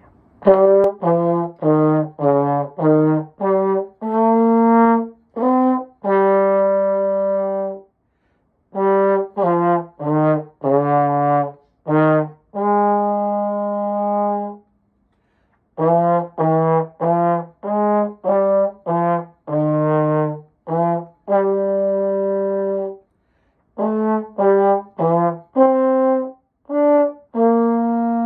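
Unaccompanied slide trombone playing a solo: runs of short separate notes, each phrase ending on a long held note, with short breath pauses between the phrases.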